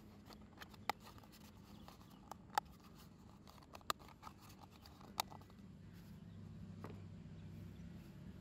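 A thin plastic Snapfold folding cup being bent and snapped into shape by hand: light crinkling with several sharp snaps of the plastic, the loudest four spread over the first five seconds.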